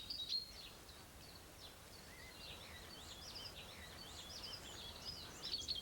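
Newly hatched chicks cheeping: a flurry of short, high peeps, faint and continuous.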